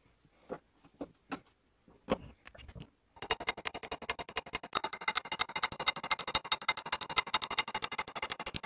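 A few light clicks of small metal parts being handled, then from about three seconds in a rapid, even metallic clatter, about ten clicks a second, of a miniature toy sewing machine's mechanism running.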